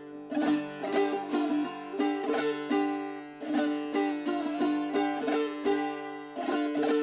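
Handmade Shurangiz, a Persian long-necked plucked lute, played solo in an improvisation: a quick run of plucked notes over lower strings left ringing as a steady drone.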